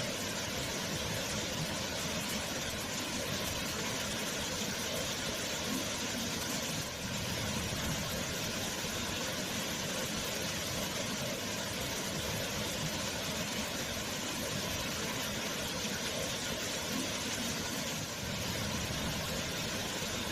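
Waterfall: water pouring and crashing in a steady, unbroken roar.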